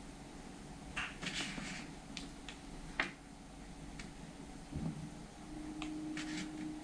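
Faint handling noise of a paper card: soft rustles and a few light clicks, several in a cluster about a second in, one sharper click about three seconds in and more near the end, over a low room hum that steadies into a faint tone in the last seconds.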